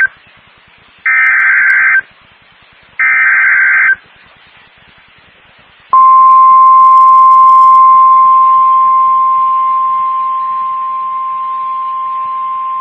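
Emergency Alert System digital header on NOAA Weather Radio: the end of one burst and then two more harsh, warbling data bursts, each about a second long and about a second apart. About six seconds in, the steady single-pitch 1050 Hz weather radio alert tone starts, then eases to a lower level a few seconds later and holds.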